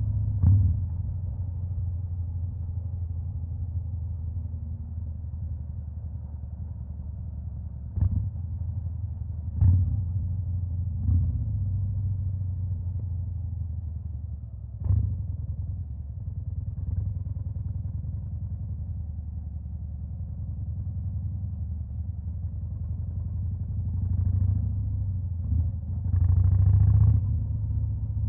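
Harley-Davidson Fat Boy's Stage 2-tuned Milwaukee-Eight V-twin idling with a deep, steady rumble, given short throttle blips about half a second in and several more later on. It runs higher and louder near the end.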